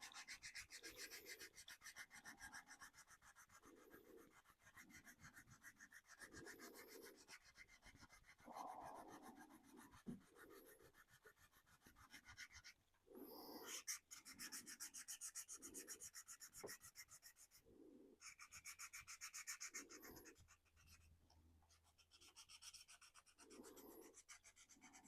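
Faint rubbing of 400-grit sandpaper on the painted 3D-printed plastic body of a 1/24-scale RC car, in repeated short strokes with brief pauses between them, wearing the top paint coat through to the colour beneath.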